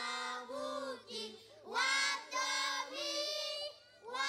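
A child singing unaccompanied in short, held phrases, with brief pauses between them.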